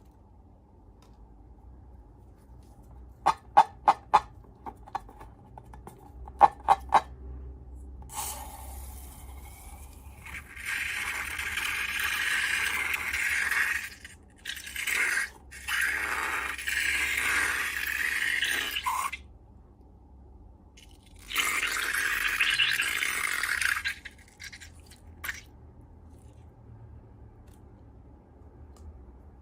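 Handling sounds from making slime with balloons: a quick cluster of sharp clicks, then long stretches of hissy, scraping noise, one of about eleven seconds with short breaks and a shorter one of about three seconds near the end.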